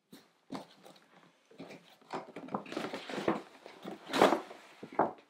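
Paper gift bag rustling and crinkling as a hand rummages through it and pulls it onto a lap, in irregular bursts. The loudest burst comes about four seconds in.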